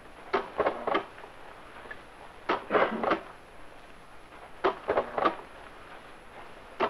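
Clicking from the switches and apparatus of the laboratory trucking game: groups of three or four sharp clicks, about every two seconds.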